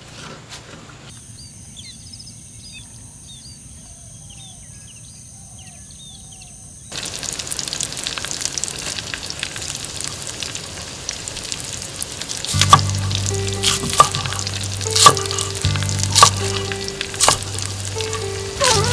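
Birds chirping against a steady high-pitched drone, then a sudden sizzling, crackling hiss of food frying. In the last third, a knife chops on a wooden cutting board about once a second.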